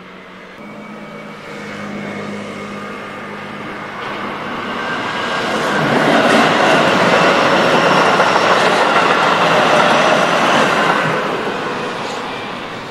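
Keihan electric commuter train passing close by: it approaches, is loudest for several seconds in the middle, then fades away.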